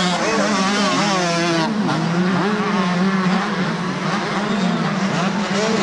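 Two-stroke 125/250cc motocross bikes racing, their engines revving up and down with overlapping rising and falling pitches, with a brief dip and climb about two seconds in.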